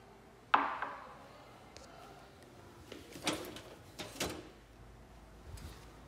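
A ceramic coffee mug set down on a marble tabletop with a sharp clink that rings and fades. About three and four seconds in, two clicks and rattles come from the metal lever handle and latch of a glass door as it is opened.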